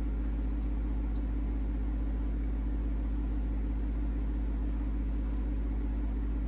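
Steady low hum with an even hiss over it, constant in level, with a couple of faint ticks.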